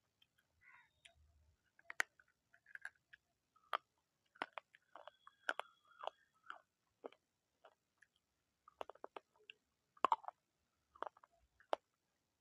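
Crunchy food being bitten and chewed: irregular sharp crunches, sometimes several in quick succession, with the loudest about two seconds in, around ten seconds in and near the end.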